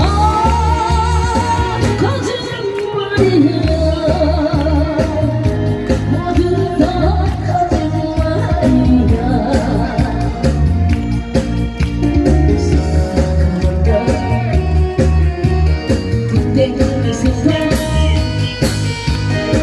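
A voice singing with vibrato over a loud amplified backing track with a steady bass beat.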